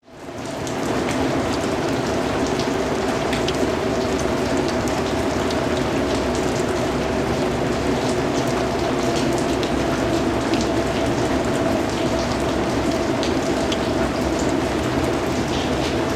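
Rain falling steadily, with the taps of individual drops standing out over a dense hiss. It fades in over the first half second.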